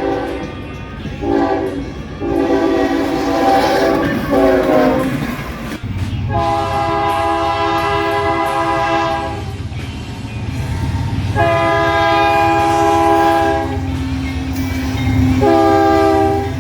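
Locomotive multi-chime air horn sounding a chord in blasts: several short blasts. Then, in a second recording with a higher-pitched horn, two long blasts and a short one over the low rumble of the passing train, the opening of a grade-crossing signal.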